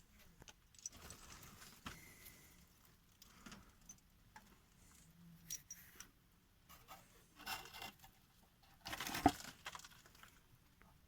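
Small metal hand tools being handled: scattered light clicks and clinks with some rustling, and a louder metallic clatter about nine seconds in, as a thread-cutting die and its holder are picked up and readied.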